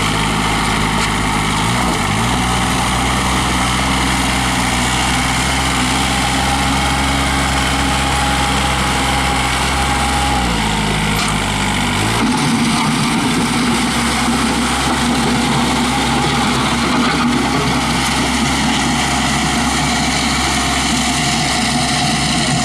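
Kubota B1750 compact tractor's three-cylinder diesel engine running at a steady speed, dipping briefly about two seconds in, then rising to a higher speed about halfway through and holding there.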